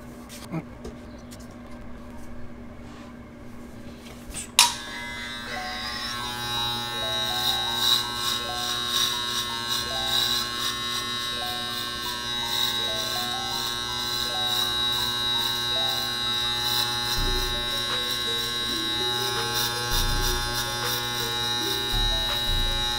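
Andis Master magnetic-motor hair clippers switched on with a click about five seconds in, then buzzing steadily while cutting short hair at the back of the head.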